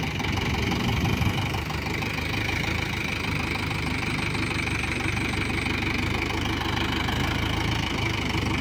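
Mahindra 475 DI XP Plus tractor's diesel engine running steadily while the tractor sits bogged in mud.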